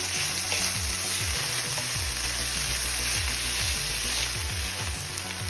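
Chicken pieces sizzling in a hot pan as they are tossed and stirred through the sauce, over background music with a repeated sliding bass.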